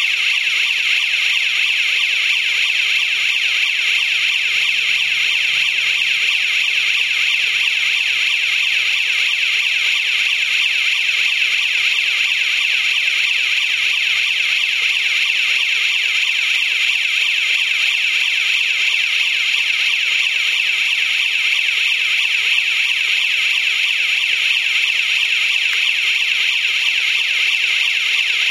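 Built-in electronic siren of a 24 V DC rotating warning beacon sounding continuously: a loud, high-pitched, rapidly warbling alarm tone at a steady level.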